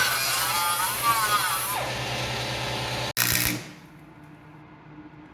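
An electric power tool running, its pitch wavering as it works. About three seconds in it stops abruptly, leaving a quiet stretch.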